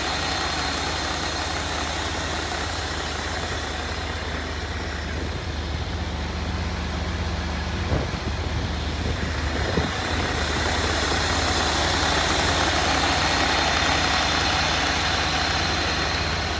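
Semi truck's diesel engine running steadily. There are two short knocks about 8 and 10 seconds in, and a rushing noise that grows louder in the second half.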